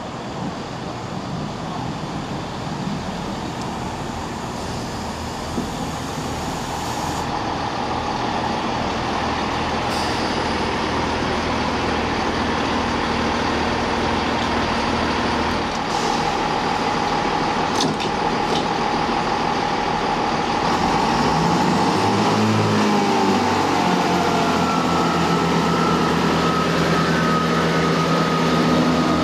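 Chiltern Railways Class 165 diesel multiple unit at the platform, its underfloor diesel engines running steadily, with a few sharp clicks about halfway through. Past two-thirds of the way in, the engines power up and a steady whine joins them as the train pulls away.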